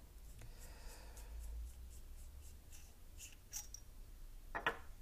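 Faint scraping and light clicks as a threaded metal end cap is hand-unscrewed from a Barking Spider 2 muzzle brake. A brief, louder clack comes near the end.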